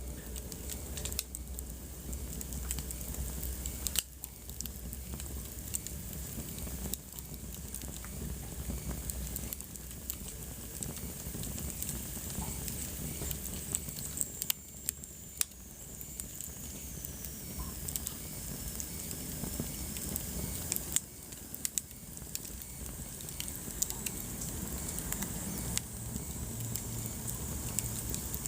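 Wood fire burning in a fireplace: steady crackling with scattered sharp pops over a low rumble of the flames. A faint high whistle slides downward about halfway through.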